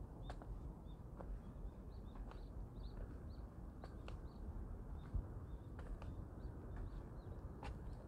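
Small birds chirping in many short, high notes, over irregular footsteps crunching on a forest path and a steady low rumble.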